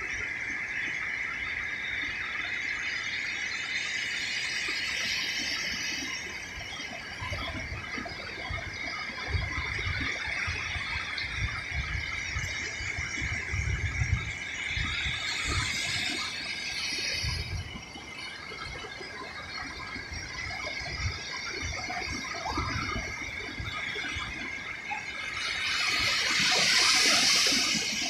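Ocean surf breaking and washing up a sandy beach, with the loudest rushing wash near the end. A steady high-pitched whine sits over the surf, strongest in the first half, from a recording the uploader calls weird-sounding.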